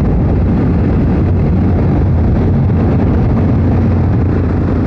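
Motorcycle riding along at road speed: a steady engine drone mixed with wind rushing over the bike-mounted camera's microphone.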